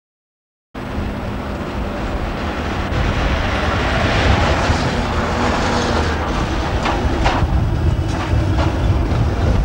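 Budapest tram approaching along the track, its wheels rumbling on the rails. A few short, sharp clicks come between about six and nine seconds in. The sound cuts in abruptly just under a second in.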